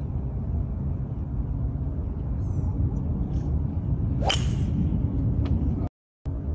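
Golf tee shot about four seconds in: a quick rising swish of the club ending in a sharp crack as it strikes the ball, over a steady low outdoor rumble.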